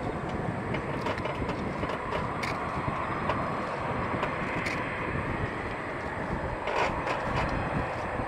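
Distant Eurofighter Typhoon's twin EJ200 turbofans running at taxi power: a steady rumbling noise with a faint whine that swells through the middle.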